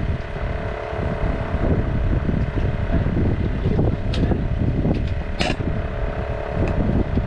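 Wind buffeting the microphone on an open boat at sea, a steady low rumble with a faint even hum under it and a few light clicks, the sharpest about five and a half seconds in.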